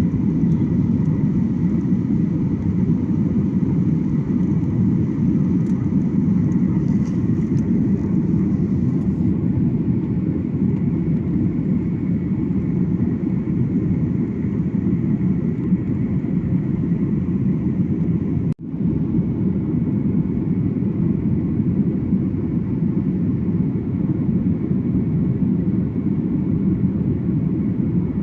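Steady rumble of jet airliner noise heard inside the passenger cabin, engines and airflow, with a faint steady whine. It drops out for an instant once, about two-thirds of the way through.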